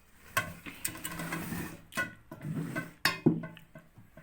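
Kitchen utensils and containers being handled: a few knocks and scrapes, with a low steady hum underneath.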